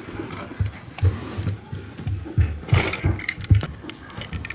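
Irregular soft thumps and light plastic knocks as a round plastic Baikinman capsule toy is bumped and rolled across a tatami mat by die-cast toy cars.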